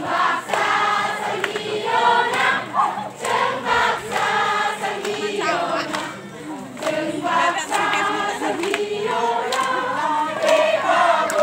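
Many voices singing together in unison, a chant-like song in short phrases, over the hubbub of a crowd.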